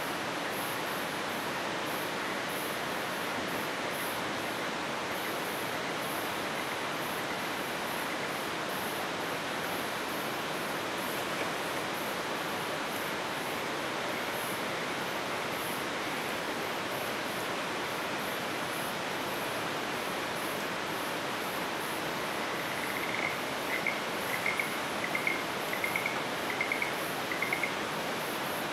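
Night forest ambience: a steady rushing hiss, with insects chirping in a high, even pulse. Near the end comes a run of about eight short, clear chirps from some small animal.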